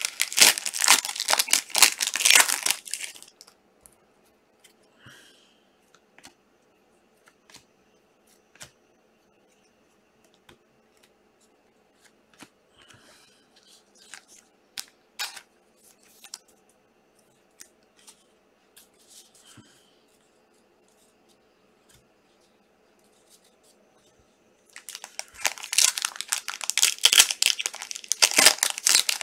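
Trading-card pack wrappers being torn open and crinkled, for about three seconds at the start and again from about 25 seconds on. In between it is quiet, with scattered light clicks and taps of handling.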